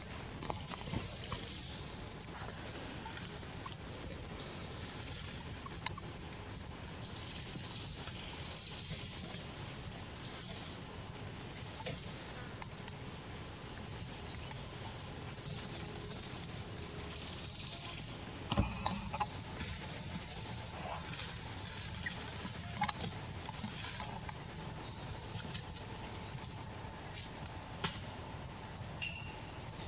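An insect, such as a cricket, trilling on one high steady note in repeated trills about a second long with short gaps between them. A couple of brief knocks come about two-thirds of the way through.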